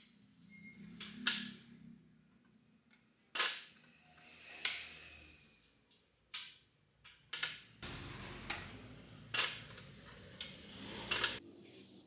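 Steel sliding-bar gate latch being worked open and shut: a string of about ten sharp metal clicks and clacks, some in quick pairs.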